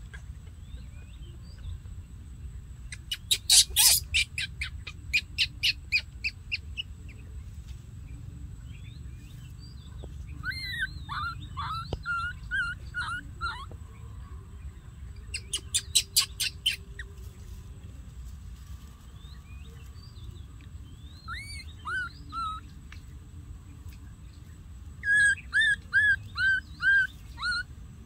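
Baby monkey crying in runs of short, high, squeaky calls, several a second, strongest near the end. Twice a rapid dry rattle cuts in, once a few seconds in and again about halfway through.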